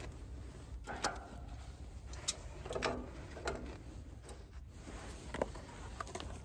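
Split oak kindling sticks knocking and clattering against each other and the steel firebox as they are laid by hand: a handful of short, light knocks spread through, over a low steady rumble.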